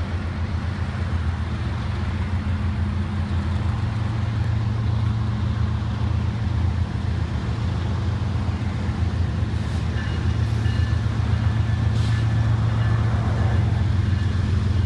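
Diesel-electric freight locomotives, led by a GE ES44AC, approaching under power: a steady low engine rumble that slowly grows louder. A faint high tone joins about two-thirds of the way through.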